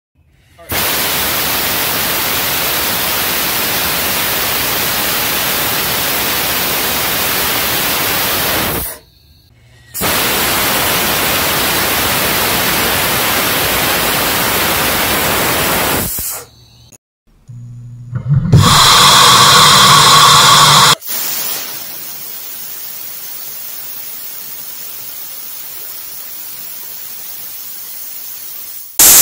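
Compressed air jetting from a small brass arcjet thruster's 3 mm nozzle, a loud steady hiss that stops about 9 s in, restarts a second later and cuts off again about 16 s in. Near 18 s a louder run with a steady buzz on top lasts about three seconds, then a quieter hiss continues.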